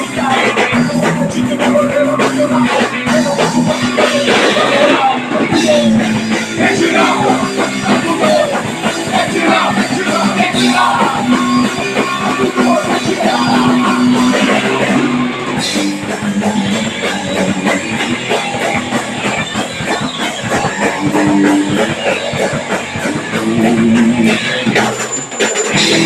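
Punk rock band playing live: distorted electric guitars, bass and drum kit, with singing.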